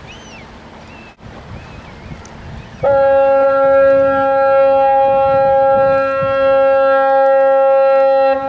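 Bastø car ferry's horn sounding one long, steady blast of about five and a half seconds, starting abruptly about three seconds in. It is a fog signal from the ferry as it approaches the harbour unseen in thick fog. Before the blast there is only a quiet background of wind and water.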